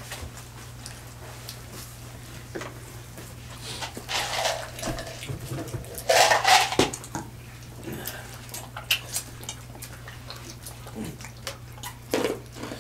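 Mukbang eating noises at a seafood-boil table: scattered clicks and cracks of crab shells and shrimp being picked apart, with wet slurping and smacking, and two louder noisy bursts about four and six seconds in. A steady low hum runs underneath.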